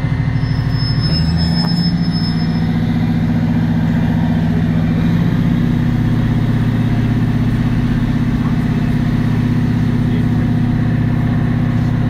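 Underfloor diesel engine of a Class 153 diesel railcar heard from inside the carriage, running under power as the train pulls away from the station. The engine note shifts to a new steady pitch about five seconds in.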